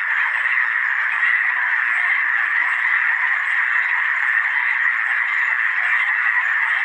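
A chorus of many frogs calling at once, a dense, continuous din without pauses.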